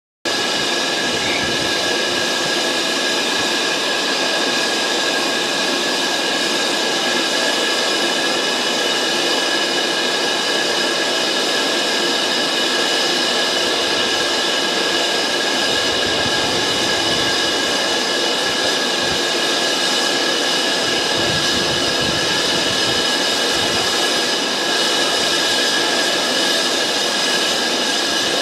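Steady hiss of steam from BR Standard Class 5 4-6-0 steam locomotive No 73082 Camelot standing at the platform, even and unbroken throughout.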